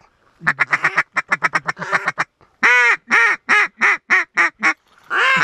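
Mallard-style duck call blown to draw ducks in: a fast run of short clucking notes, then one long loud quack followed by about six shorter, evenly spaced quacks, and another quack near the end.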